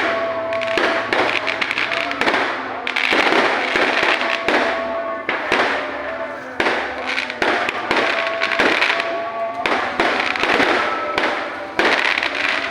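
Fireworks display: dense, rapid crackling bangs coming in repeated volleys every couple of seconds, with music playing underneath.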